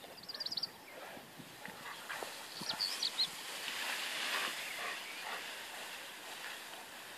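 Young grain stalks rustling as two Bernese Mountain Dogs bound through the crop, with short high chirps: a quick run of them just after the start and a few more around three seconds in.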